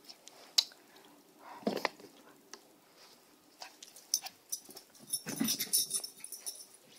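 Dogs playing: short low vocal noises from a dog about two seconds in and a busier run of them past halfway, among scattered clicks and rustles.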